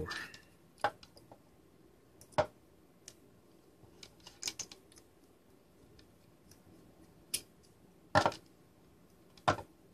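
Small screwdriver working the screws out of a mini plastic pump housing: irregular clicks and light scrapes of metal on screw heads and plastic, a few of them louder, with a cluster of quick clicks in the middle.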